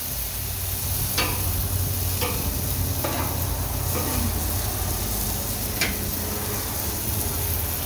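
Barbecue-sauced chicken wings sizzling on a gas grill's stainless grate over open flame. A steady low hum runs underneath, and there are a few light clicks.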